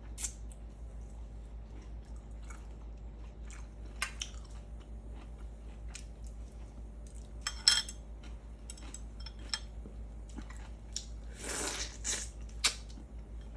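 Close-miked eating sounds: a person chewing fish, with soft mouth clicks and smacks over a low steady hum. A sharper click comes about eight seconds in, and a brief louder rustling noise near the end.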